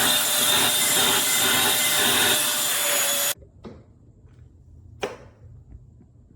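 Eureka corded stick vacuum cleaner running, a steady motor whine over a rushing noise, which cuts off abruptly a little over three seconds in. Two light knocks follow.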